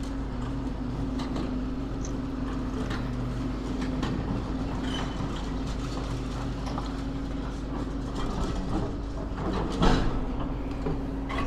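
Demolition excavator's diesel engine running steadily, with a loud knock near the end.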